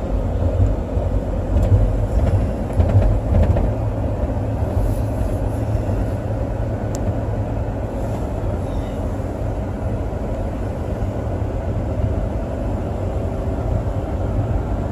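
Steady low rumble of a vehicle driving, heard from inside the cab, a little louder in the first few seconds.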